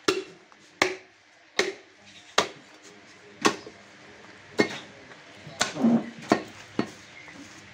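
Heavy butcher's cleaver chopping through a beef leg on a wooden chopping block: about nine sharp thwacks, roughly one a second, coming quicker near the end.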